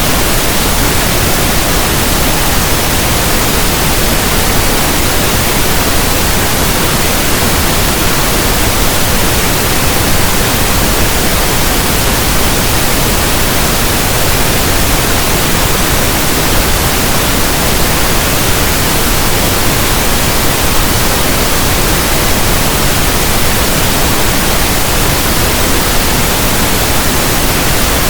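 Steady synthesized pink noise: an even, unbroken hiss of soft static, like a radio tuned between stations.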